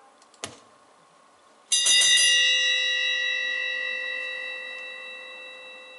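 A short click, then a bell struck once about a second later, ringing out with several clear tones and fading slowly.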